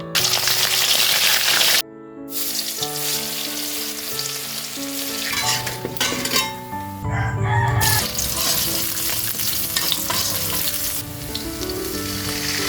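Food sizzling as it fries in hot oil in a pan, with background music. The sizzle breaks off briefly about two seconds in, then resumes.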